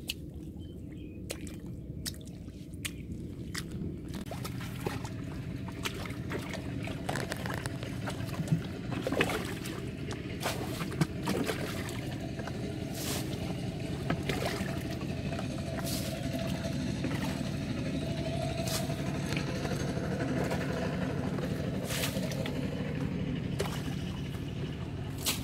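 Wet mud squelching and muddy water sloshing as a person works by hand and foot in a flooded pit, with scattered sharp slaps and splashes over a steady low hum.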